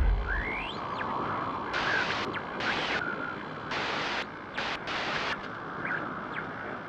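Glitch sound effect: hissing static that cuts in and out in short, abrupt blocks, with a few brief rising chirps, starting as a deep boom dies away.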